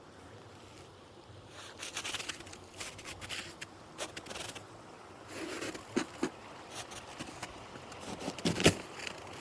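Irregular rustling and scraping with scattered clicks, and a single sharp knock near the end.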